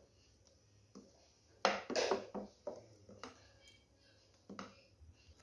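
Spoon stirring thick rice-and-black-gram batter in a bowl: scattered short scrapes and taps of the spoon against the bowl, with a busier run of them about two seconds in.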